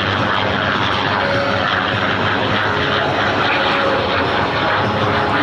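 P-51 Mustang's V-12 piston engine and propeller running steadily as the fighter flies an aerobatic pass overhead, its pitch wavering slightly.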